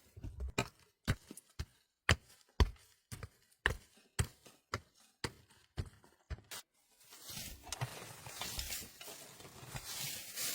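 Footsteps crunching through snow, about two a second, stopping after about six and a half seconds. A steady hiss then takes over.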